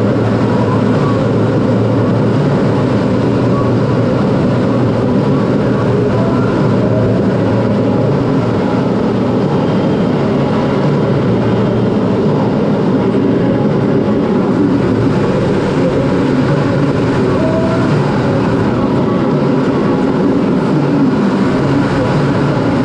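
Steady, loud cockpit noise of a CT-114 Tutor jet in flight: its single turbojet engine and the airflow over the canopy, heard from inside the cockpit.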